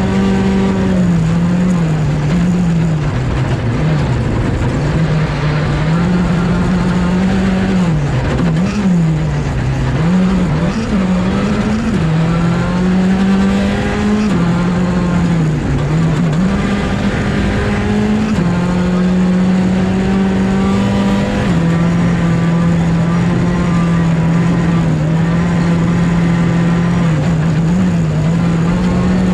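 Skoda Fabia R5 rally car's turbocharged four-cylinder engine at full stage pace, heard from inside the cockpit, its pitch climbing and dropping every few seconds as the driver accelerates, shifts and lifts for corners.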